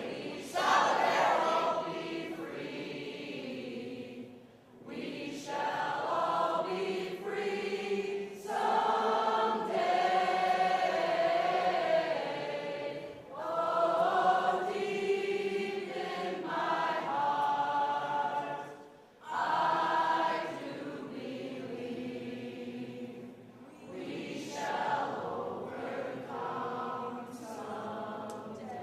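A group of voices singing together in long held notes, phrase after phrase, with brief breaks between phrases.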